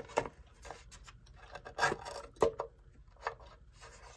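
Rubbing and scraping as an electric clock's power cord is drawn through the back of its case, with several light knocks from handling.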